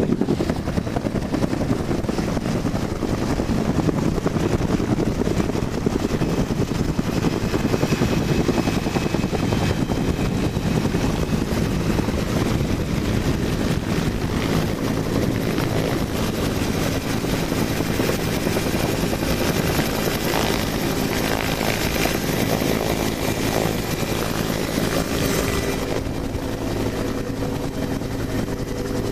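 Helicopter rotor and turbine running at a hover, a steady loud chop and whine with rushing downwash, heard from right beneath the aircraft on its rescue hoist. The high rushing hiss eases a little near the end as the cabin is reached.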